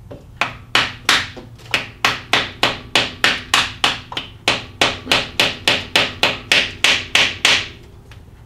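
Hammer striking a plastic seal driver in steady, even taps, about three a second, driving a new front crankshaft seal into the engine's timing chain cover until it bottoms out. The tapping stops near the end.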